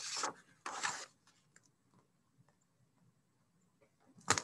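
A paperback picture book's pages being turned and handled: two quick paper swishes in the first second, then quiet, then a short, louder scrape near the end.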